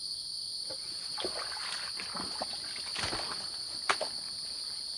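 Faint irregular sloshing and small splashes of water, over a steady high chorus of crickets.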